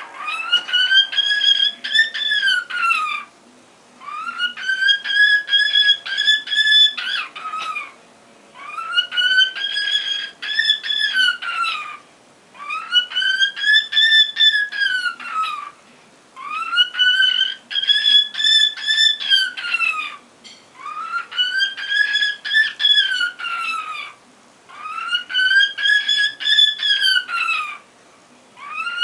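Cockatiel whistling the same phrase over and over, about seven times. Each phrase rises and then falls in pitch over about three seconds, with short pauses between.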